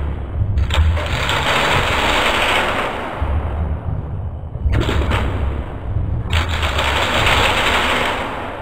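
Experimental musique concrète collage: a low droning rumble under two long bursts of dense rattling noise, the first starting about half a second in and the second about six seconds in, each lasting two to three seconds.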